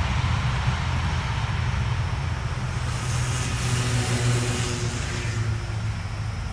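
DB Class 218 diesel-hydraulic locomotive running with a steady low drone as it draws its passenger train away, slowly fading. A rushing hiss swells briefly in the middle.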